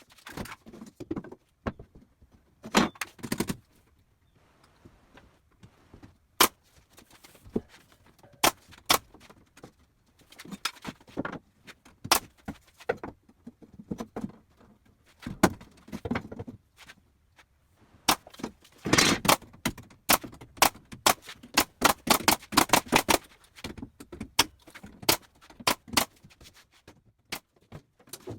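Workshop assembly noise: a long series of sharp clicks and knocks, some single and some in quick runs, with a dense cluster about two-thirds of the way through, from fastening and handling the wooden cabinet parts.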